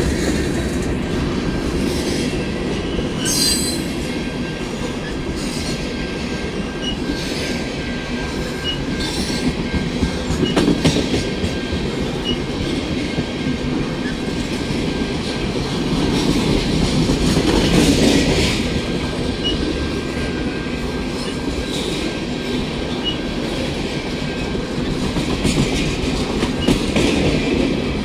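A train rolling steadily past on the rails, its wheels clicking over the rail joints.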